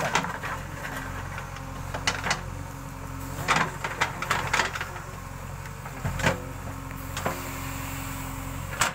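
JCB backhoe loader's diesel engine running steadily under work, with scattered sharp knocks and clatters every second or two.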